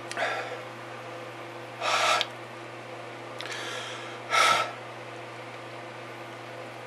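A man breathing hard through his open mouth, with two loud, sharp breaths about two and four and a half seconds in and fainter ones between. He is reacting to the burn of a bite of raw ghost pepper.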